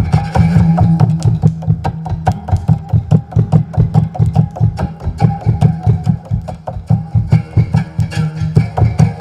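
A single-wire string stretched on a tree branch, played as a one-string instrument in rapid, evenly repeated strokes, several a second, each stroke ringing over a low droning pitch.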